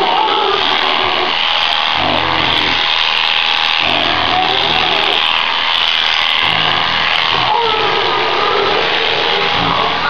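Electric sheep-shearing handpiece running with a steady high buzz as it cuts through a sheep's fleece.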